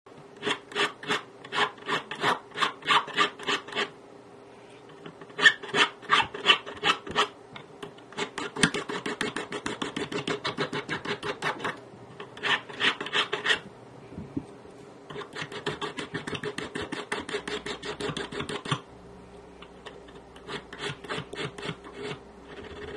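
Hand file worked back and forth on a small silver piece, rasping in quick runs of a few strokes a second, with short pauses between runs.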